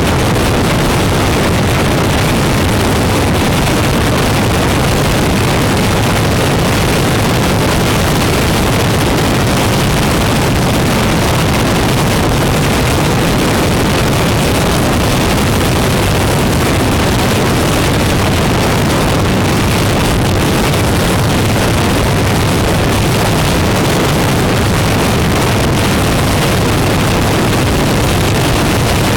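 Motorcycle riding at a steady cruising speed, its engine running under loud, constant wind rush on the bike-mounted microphone.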